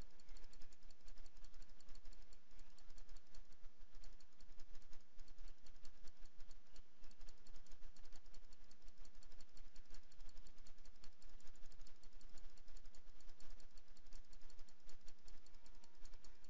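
Rapid, near-continuous clicking of a computer mouse button as stitch points are placed one after another in embroidery digitizing software.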